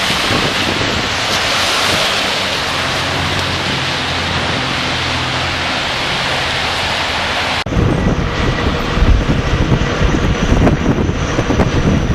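Wind in a winter snowstorm, a steady rushing noise that changes sharply about eight seconds in to rough gusts buffeting the microphone with a deep rumble.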